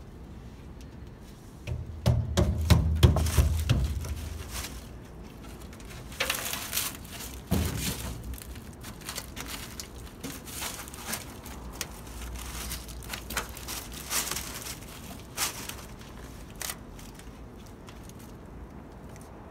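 Work noise from fitting the rubber rear-window gasket into the cab of a 1974 Chevy C10 pickup: scattered knocks, clicks and rubbing, with a louder run of low thumps about two seconds in and another knock near eight seconds.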